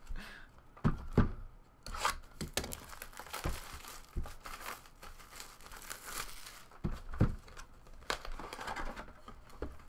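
Plastic shrink wrap being torn and crinkled off a sealed cardboard trading-card box, with a few sharp knocks as the box is handled.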